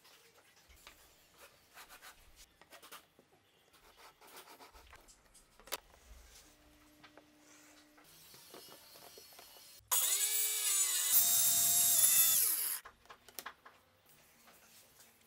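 Handheld circular saw starting with a rising whine, cutting into a plywood panel for about three seconds, then winding down with a falling tone. Before it, quiet tapping and rubbing of plywood boards on the bench.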